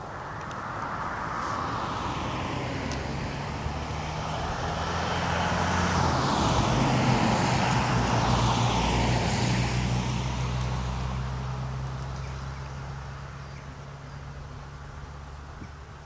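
An engine drone passing by, a steady low hum with a hiss above it that swells to its loudest about halfway through and then fades away, its pitch dropping slightly as it passes.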